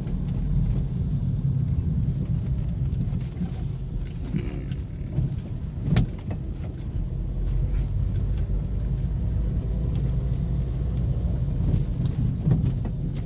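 Cabin noise of a car driving slowly through heavy rain: a steady low road rumble, with scattered ticks and one sharper click about halfway through.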